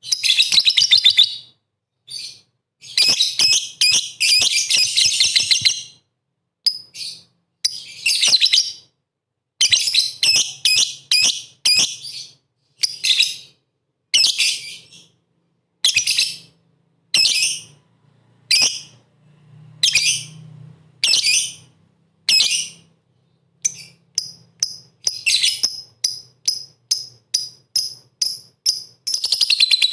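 Lovebird song: shrill chirping in long, dense trills during the first few seconds, then short bursts about once a second, running into continuous trilling near the end.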